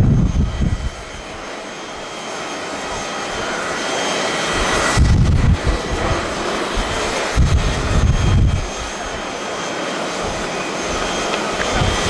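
Japan Airlines Boeing 737-800 jet engines on the runway, a steady jet roar that swells over the first few seconds. Low gusts of wind buffet the microphone twice in the middle.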